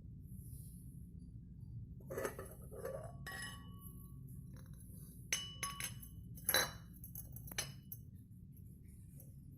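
Glass clinking: a handful of irregular light knocks, a few leaving a short ring.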